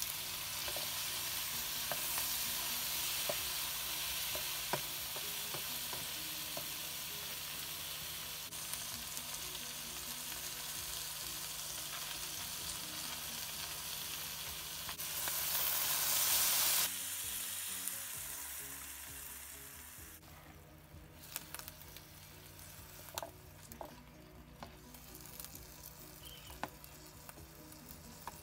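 Food frying in hot oil in a pan, a steady sizzle, with a louder hissing surge lasting about two seconds past the middle. After that the sizzle dies down and a few light knocks of a utensil on the pan are heard.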